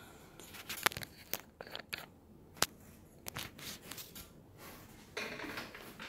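Handling noise from a camera being picked up and moved by hand: scattered light clicks and taps, with a short rustle about five seconds in.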